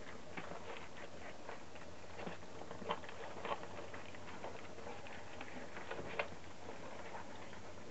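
A litter of puppies eating together from one shallow dish: irregular wet smacking and lapping with scattered short clicks, and paws shuffling on newspaper.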